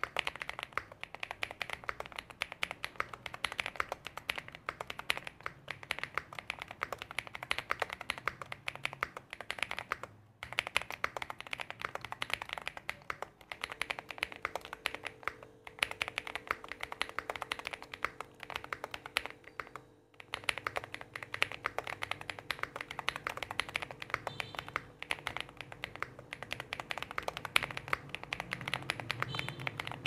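Rainy75 mechanical keyboard with SA-profile ABS double-shot keycaps and a modded stabilizer being typed on quickly: a dense, continuous run of key clacks, broken by a brief pause three times.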